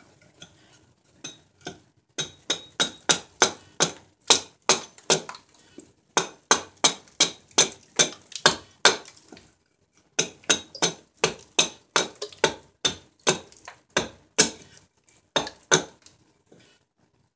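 Hatchet chopping into a silver birch blank held upright on a chopping stump, roughing out a ladle: sharp cracking chops about three a second, in three runs broken by brief pauses.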